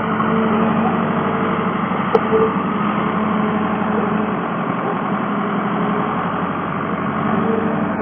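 Mini skid steer loader's engine running steadily at a constant speed.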